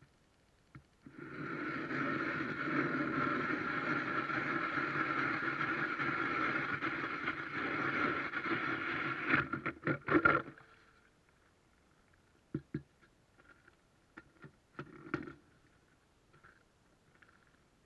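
Hand ice auger drilling a hole through lake ice: a steady grinding scrape for about eight seconds as the blades cut, then several sharp knocks as the auger comes out of the hole, followed by a few scattered clunks on the ice.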